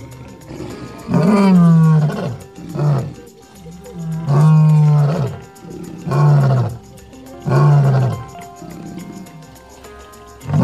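Male lion roaring: a series of about six deep calls, each falling in pitch, one to two seconds apart.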